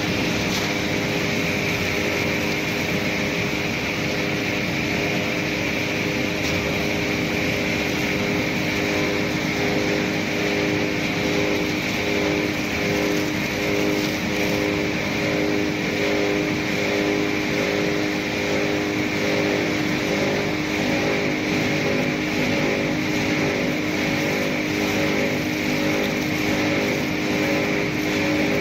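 Twin-shaft copper wire shredder running steadily, its counter-rotating hooked cutters turning and chewing scrap wire, over a constant motor and gearbox hum.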